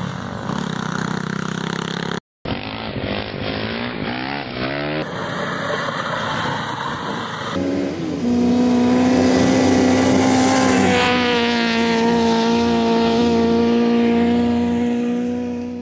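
Dune buggy engines in a series of short clips. First they run with rough noise, then rev up and down, then a pitch rises into a long steady high-revving run, the loudest part, which fades out near the end.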